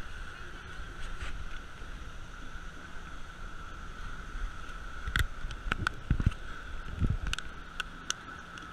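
Speedboat engine running at low speed, a steady hum with a thin whine over a low rumble, with water and wind noise on the microphone. A few sharp knocks or splashes come between about five and eight seconds in.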